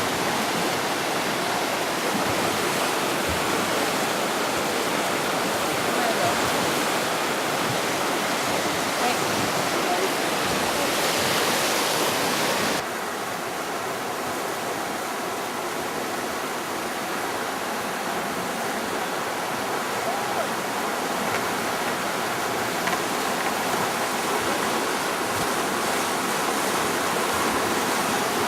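Steady rush of flowing water, with an abrupt drop in level about thirteen seconds in where the recording cuts.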